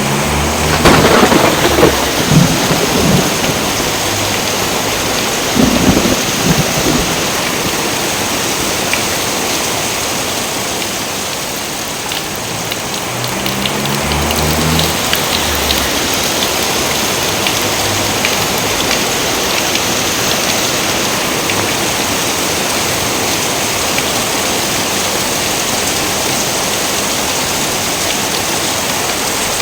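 Steady rain falling, with thunder: a loud crack and rumble about a second in, another clap about six seconds in, and a softer low rumble roughly halfway through.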